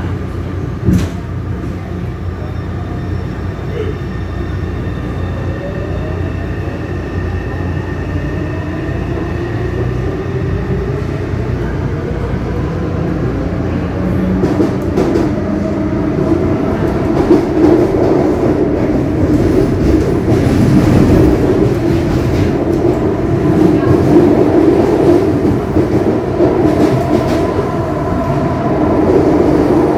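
Taipei Metro train running, heard from inside the car: a steady rumble with a motor whine that rises in pitch as the train picks up speed, growing louder through the second half.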